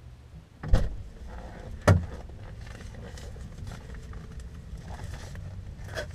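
Car passenger door unlatching and opening: two sharp clunks about a second apart. After them the door stays open, letting in a steady outside hum, with faint rustling as a box is handled.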